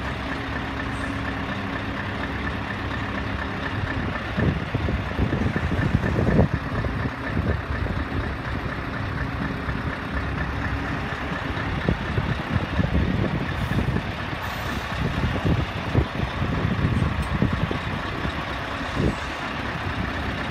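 Scania R580 truck's V8 diesel engine idling steadily. Its even hum fades out about halfway through, while uneven low rumbling comes and goes.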